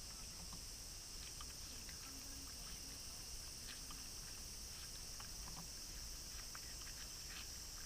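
Faint crunching and wet clicking of a capybara chewing watermelon, heard as many short irregular clicks over a steady high-pitched hiss.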